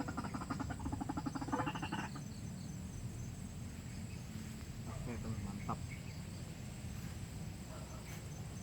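A white-breasted waterhen's croaking call, a fast run of harsh pulses, stops about two seconds in. Faint insects keep up a steady high drone throughout, with a couple of brief chirps later on.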